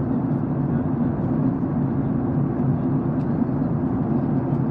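Steady cabin noise inside a Boeing 737 MAX 8 airliner descending: an even low rumble of engines and airflow with a softer hiss above it.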